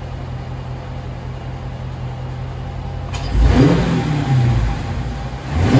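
Dodge Challenger Scat Pack's 392 Hemi V8 idling steadily, then revved twice: once about three and a half seconds in and again near the end, with the pitch climbing and falling back each time. The engine breathes through a newly fitted Hellcat lower air box.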